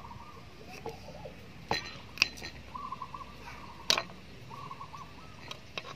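Kitchen knife cutting through raw carrot onto a wooden chopping board: a few sharp knocks. Between them, a bird calls quietly in short wavering phrases.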